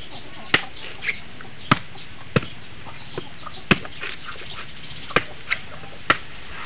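Machete blade chopping into the fibrous husk of a whole coconut, about eight sharp whacks at uneven intervals, some lighter than others, as the husk is hacked off.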